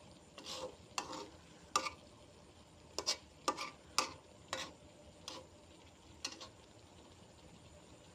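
A utensil stirring and scraping food in a cooking pan, a stroke about every half second, over a faint sizzle of frying. The stirring stops about six seconds in.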